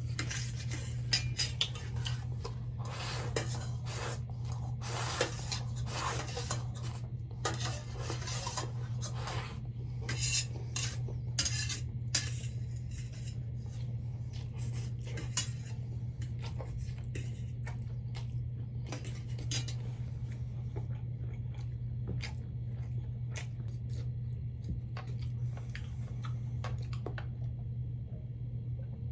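Cutlery clinking and scraping against a dish, frequent for the first dozen seconds, then sparser, and stopping near the end. A steady low hum runs underneath.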